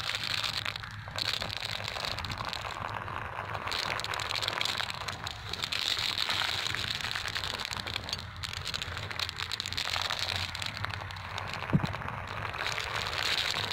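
Glass marbles rolling down a channel scraped in dry sand, a continuous gritty crackle of grit under the rolling marbles. A sharp click near the end as marbles knock together.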